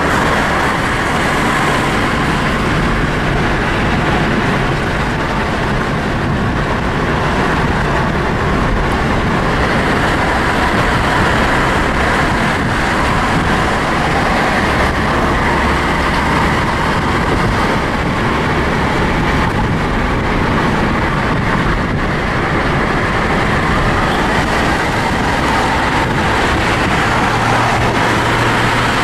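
Steady road noise of a moving car, heard from inside: engine and tyres running at a constant speed, with no breaks.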